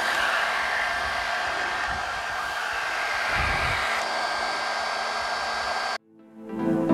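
Rowenta Brush Activ' Nano Smart rotating hot-air brush running, a steady rush of blown air with a thin high whine. It cuts off suddenly about six seconds in.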